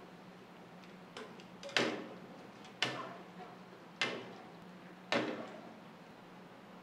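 A metal cooking utensil knocking against the rim of a wok four times, about a second apart, each knock ringing briefly, with a lighter tap just before the first.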